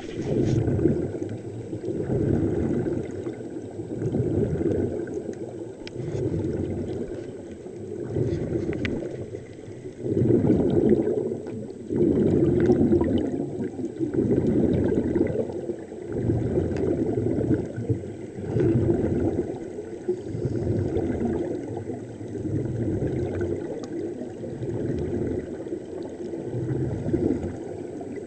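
Air bubbling underwater from surface-supplied diving helmets: a low rushing that swells and fades every couple of seconds.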